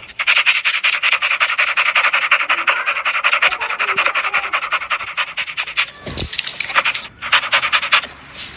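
Rottweiler panting fast and rhythmically through an open mouth. The panting breaks off briefly twice near the end.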